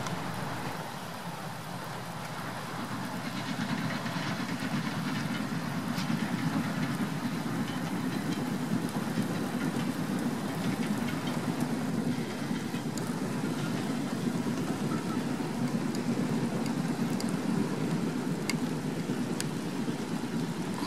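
Steam locomotive working hard as it hauls a train of coaches past: a fast, continuous exhaust beat over the rumble of the train, growing louder about three seconds in and then steady.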